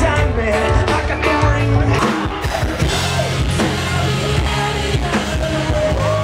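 Rock band playing live: drum kit, electric guitars and a lead singer, with a long held sung note near the end.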